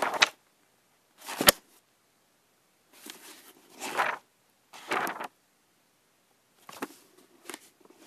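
Pages of a paper book turned one at a time, each a short papery rustle and flap, about seven turns with pauses between. One turn, about a second and a half in, ends in a sharp snap of paper.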